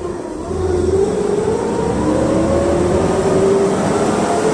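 PAZ-32054 bus accelerating, heard from inside the passenger cabin: its ZMZ-5234 V8 engine, running on LPG, and drivetrain give a whine that rises in pitch. The whine drops back and climbs again about two seconds in, as the bus takes the next gear.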